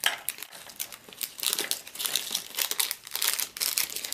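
Plastic MRE ration packets crinkling and rustling as they are handled, a dense, irregular crackle.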